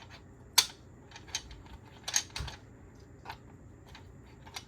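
Plastic keycaps clicking and tapping as they are handled and pressed back onto their holder: about six short, sharp clicks at uneven spacing, the loudest about half a second in.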